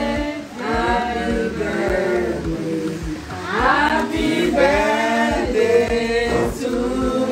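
A small group of people singing together, unaccompanied, in a celebratory song.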